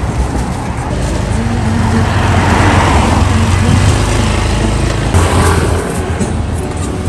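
Road traffic: vehicles running past on the street, over a low engine hum, with one passing swelling up about three seconds in.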